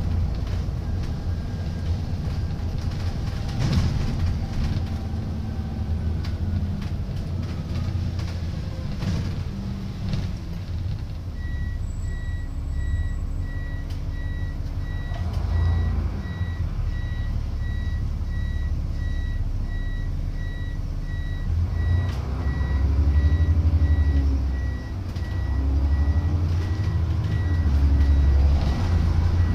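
Diesel engine of a Plaxton President double-decker bus running, with rises in engine pitch in the last third. From about eleven seconds in, a reversing alarm beeps steadily at one pitch.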